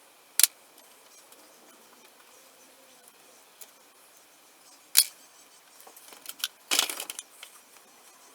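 Metal tools and loose bolts being handled: two sharp single clinks about half a second and five seconds in, then a rattling clatter of metal on metal near the end.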